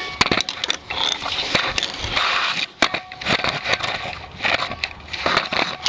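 Camera handling noise as the camera is set down and positioned: a rapid run of clicks and knocks with scraping and rubbing.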